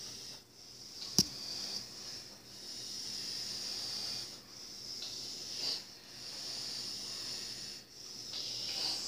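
A sleeping person's slow, hissy breathing, rising and falling every few seconds, with a sharp click about a second in.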